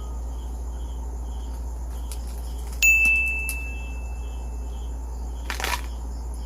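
Crickets chirping steadily about twice a second over a low hum. A single bright ding about three seconds in rings on for a couple of seconds. Near the end there is a short crunch of crispy pork being bitten.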